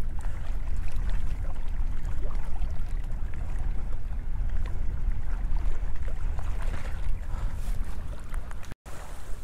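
Wind buffeting an action camera's microphone: a steady low rumble that cuts off abruptly near the end.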